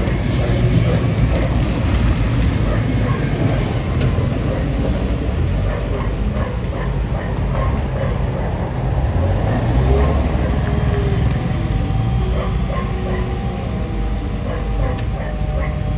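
Bulldozer's diesel engine running steadily with a deep rumble.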